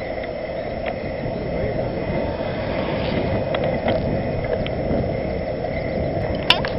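Riding noise of a bicycle rolling on asphalt in a group: steady tyre hum and wind on the camera's microphone, with scattered light clicks and a sharp rattle near the end.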